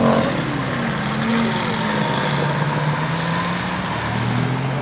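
Classic car engines driving past one after another through a bend. The first car's engine note falls away in pitch just after the start as it passes, then deeper, steady engine notes follow from the next cars coming by.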